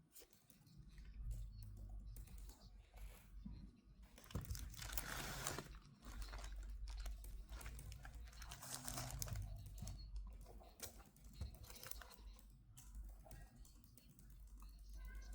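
Close handling noises of a new pair of shoes and their packaging: scattered small clicks and taps, with two stretches of crinkling packaging, about four and eight seconds in.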